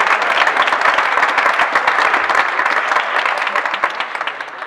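Small crowd of spectators clapping after a point in a badminton match, the applause dying away toward the end.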